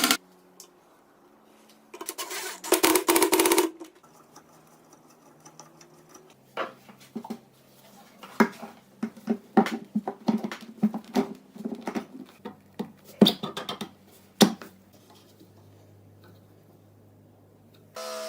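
Workshop sounds: a short burst of a running tool about two seconds in, then several seconds of irregular sharp clicks and knocks, as of metal parts being handled and worked.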